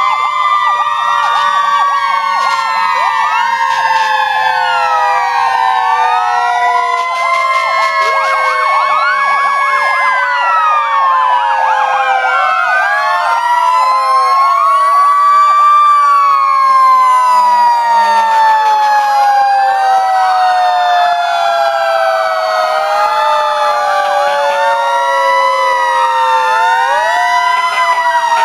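Several fire-department emergency-vehicle sirens wailing at once, their pitches sweeping up and down out of step with one another, with one long slow falling wail through the second half.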